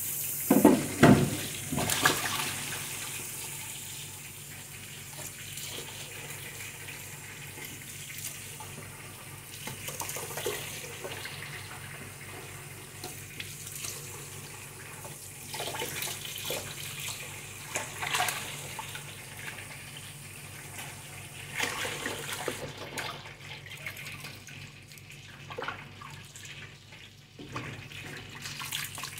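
Kitchen tap running into a sink while leafy greens are rinsed and handled under it, with scattered short knocks and rustles. A few loud knocks come about a second in.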